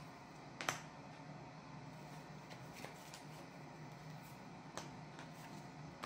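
Sleeved trading cards being laid down on a playmat: a few soft clicks and taps, the sharpest just under a second in, over a faint steady low hum.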